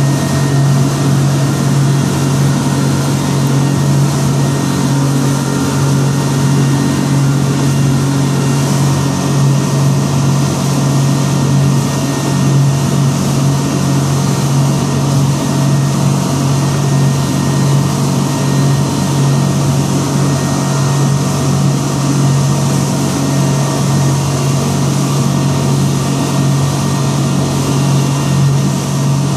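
Boat engine running at a steady speed: a constant low drone with a steady hiss above it.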